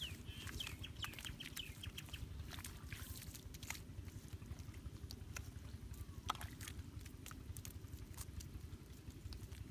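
Wet mud being patted and pressed down by hand, then trodden barefoot, heard as scattered soft slaps and clicks over a steady low rumble.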